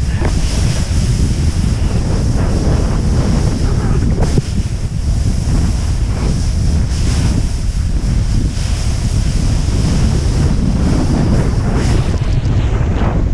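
Strong wind rushing over the camera's microphone, with the hiss and scrape of a snowboard sliding and turning through snow that swells now and then.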